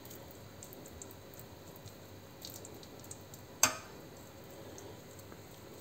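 Fork spreading diced salted herring over a salad layer in a metal springform ring: faint soft scraping and ticking, with one sharp clink of metal on metal about three and a half seconds in.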